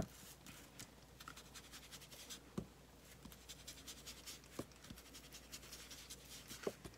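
Ink blending tool being dabbed on an ink pad and rubbed over a paper tag: faint, quick scratchy rubbing strokes on paper, with a few soft taps.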